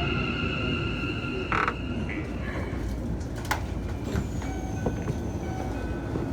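Keikyu 1000 series electric train's Mitsubishi IGBT VVVF inverter and traction motors heard from inside the car. Several steady whining tones ring over the running rumble and fade out about two seconds in. The rumble then carries on with a few faint clicks and short thin high tones as the train slows.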